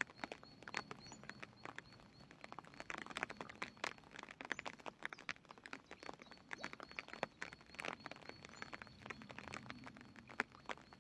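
Carp sucking floating bread off the water surface: irregular sharp smacks and pops, several a second. Behind them is a faint high chirp that repeats steadily.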